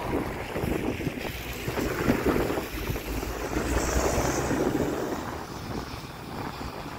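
City bus driving close past on a wet road: the rush of its tyres and running gear swells to a peak about four seconds in and eases as it pulls away, with wind buffeting the microphone.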